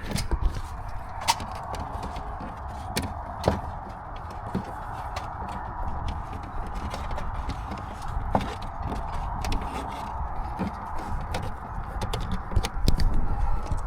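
Scattered light clicks and taps of dash cam wiring being tucked into plastic interior trim, over a steady hiss and low rumble.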